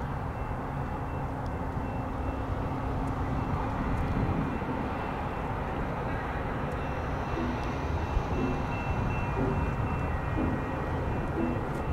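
A distant passenger train approaching, heard as a steady low rumble.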